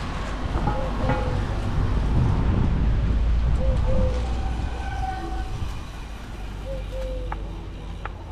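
Low rumble of wind and road noise that swells for a couple of seconds in the middle, with a short squeak repeating about every three seconds.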